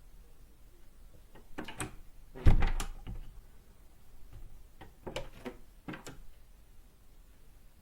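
A door being worked: several sharp latch and handle clicks, with one heavy, deep thud about two and a half seconds in, and a few more clicks about five to six seconds in.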